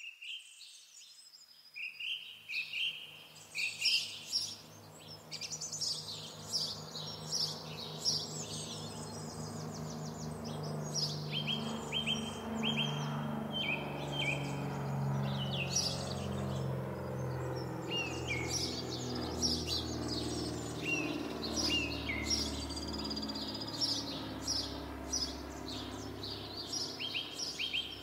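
Songbirds chirping and trilling, many short calls, some as quick runs of repeated notes, over a low sustained hum that comes in about a second and a half in and shifts in pitch now and then.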